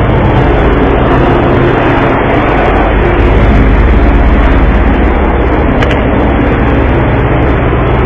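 An engine running steadily, a low hum under loud, constant rushing noise.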